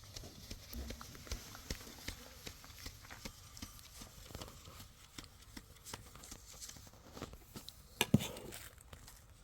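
Scattered light taps and knocks of things being handled, with one sharper knock about eight seconds in.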